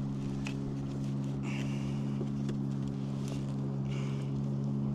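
A steady low mechanical hum with a few even tones, like a motor running nearby, under faint taps and rustles as a caught bream is handled and laid on a kayak deck, with two brief soft scuffs about a second and a half and four seconds in.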